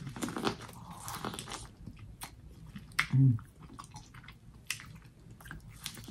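A person biting and chewing grilled corn on the cob: crisp crunches and mouth smacking as kernels are bitten off the cob. A short hum of the voice comes about three seconds in.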